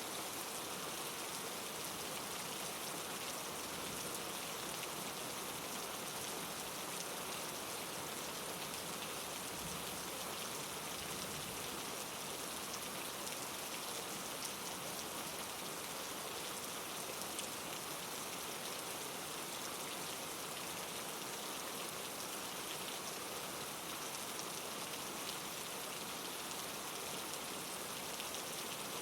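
Steady rain falling on a surface, an even hiss of many small drops with no pauses or changes in strength.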